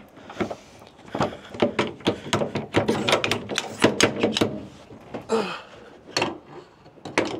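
Fan cowl latches on an Airbus A320's CFM56-5B engine being released and the cowl handled: a quick run of clicks and knocks for a few seconds, then a few scattered knocks near the end.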